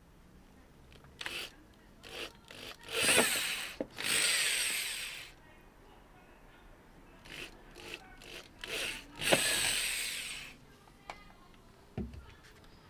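Stanley power drill boring through a plastic motorcycle front fender into the wooden block beneath. It comes in several short blips of the trigger and two longer runs of one to two seconds. A single knock sounds near the end.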